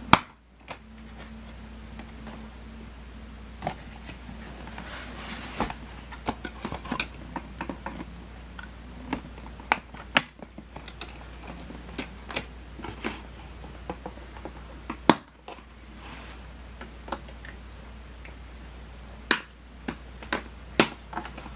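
A toy box's cardboard and plastic packaging being worked open by hand: scattered clicks, snaps and rustles, a few sharper ones in the last third, over a low steady hum.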